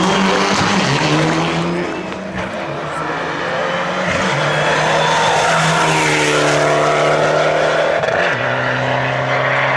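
Mitsubishi rally car's engine running hard on a rally stage, its note holding steady and then breaking at several gear changes.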